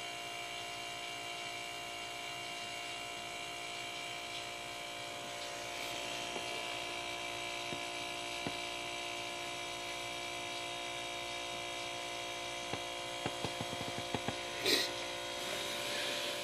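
An old refrigerator compressor, converted into an air compressor, running with a steady, quiet hum. Near the end a few light clicks and one brief rustle sound over it.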